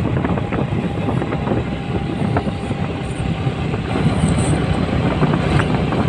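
Motorcycle ridden at a steady cruising speed, heard from on the bike: the engine running with wind and road noise.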